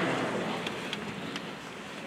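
Audience applause dying away, ending in a few last scattered claps.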